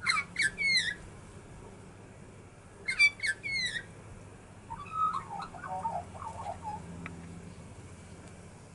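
Australian magpies singing: two short bursts of bright, gliding notes, one at the start and one about three seconds in, then a softer, lower warbling phrase for about two seconds.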